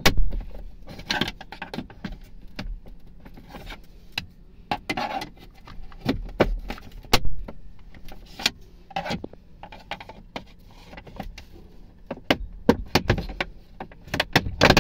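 Plastic instrument-cluster hood of a 2022 Hyundai Elantra dashboard being pried with a screwdriver: irregular sharp clicks, knocks and short scrapes as its locking clips are worked loose, with a run of louder clicks near the end.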